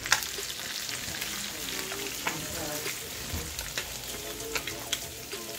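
Crappie patties sizzling and crackling in oil and butter in a black iron skillet, with sharp clicks and scrapes of a spatula against the pan as a patty is lifted out.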